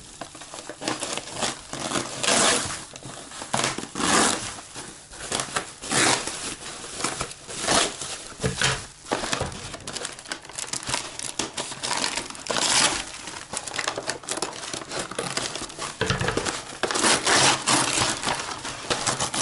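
Foil-faced foam insulation wrap and brown kraft paper crinkling and rustling in irregular bursts as a parcel is cut and pulled open by hand.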